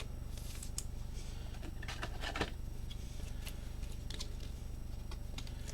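Trading cards and packs being handled: faint scattered clicks and a brief rustle about two seconds in, over a steady low hum.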